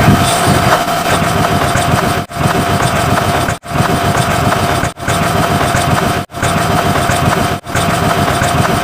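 Loud, rough engine-like running noise with a steady hum through it. It sounds like one short sound-effect clip repeated back to back, with a brief dropout about every 1.3 seconds.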